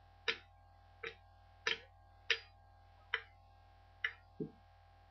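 Wooden drumstick striking a china milk jug shaped like a chicken: six sharp taps, roughly one every three-quarters of a second, each with a short ring. A duller, lower knock follows near the end.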